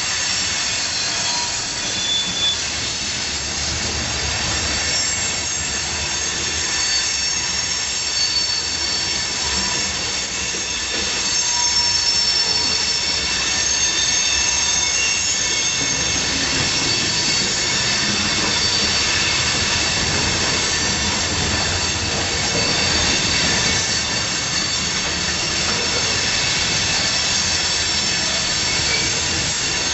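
Freight train cars rolling past with their steel wheels screeching in several high-pitched squeals over the low rumble of the cars, a screech the uploader puts down to the train going over a switch.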